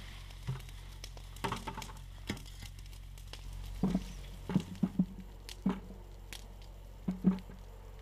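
Potatoes being dug by hand from loose garden soil: soil and plant tops rustling, with a run of dull knocks about halfway through and two more near the end.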